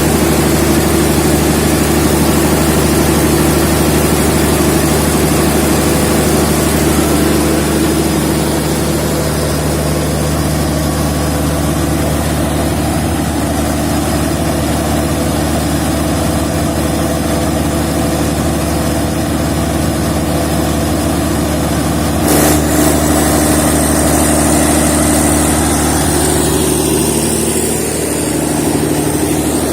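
The Perkins diesel engine of a 790 kVA generator set running at a steady speed, an even low hum. A short click comes about three quarters of the way through, after which a faint high-pitched whine joins in.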